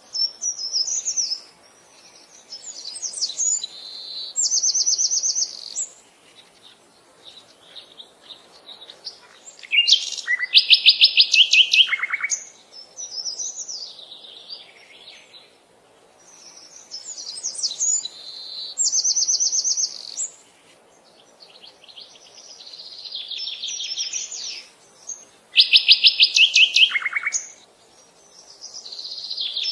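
Songbirds singing a series of high, quick trilled phrases with short pauses between them. The loudest is a fast trill that steps down in pitch at its end, sung twice about fifteen seconds apart.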